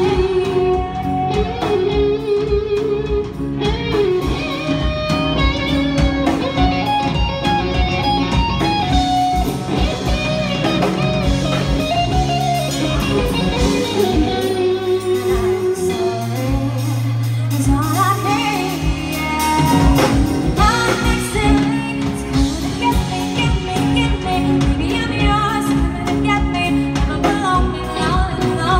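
Live band music: a woman singing lead over electric guitar, drums and keyboard, played loud through a PA.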